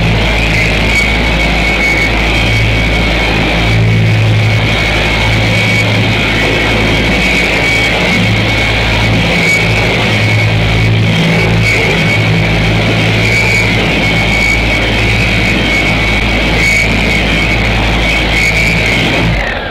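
Rock background music with a steady beat and shifting bass notes, over a steady high whine. It cuts off abruptly at the end.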